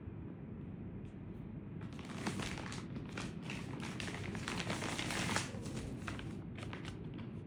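Plastic packaging crinkling and rustling as it is handled, with many small crackles, starting about two seconds in and dying away near the end, over a steady low hum.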